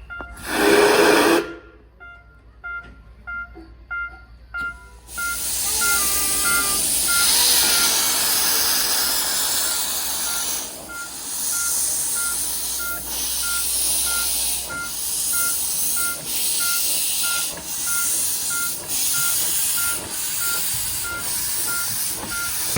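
A level crossing alarm beeping about twice a second, then a steam locomotive of the 15-inch-gauge Romney, Hythe & Dymchurch Railway passing with a steady hiss, the beeps carrying on under it for a few seconds. A loud burst of noise comes about half a second in.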